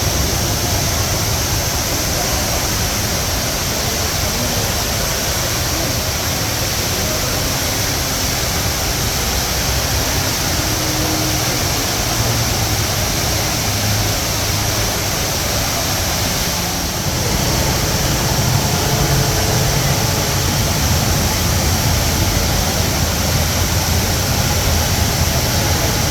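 The Rain Vortex, a very tall indoor waterfall, pouring into its basin in a steady, loud rushing roar. It dips briefly about two-thirds of the way through, then runs on slightly louder.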